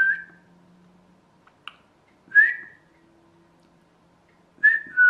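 Three short human whistles, each a single held note: one at the start, one about two and a half seconds in, and a last one near the end that steps down from a higher note to a lower one. They are whistled at a sound-activated toy to try to set it walking.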